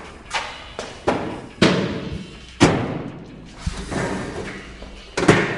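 A series of heavy thumps, about six over five seconds and unevenly spaced, each ringing out briefly afterwards.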